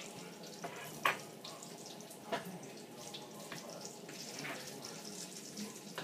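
Egg-dipped food sizzling as it fries in a pan, a steady hiss broken by a few sharp clinks of utensils or cookware.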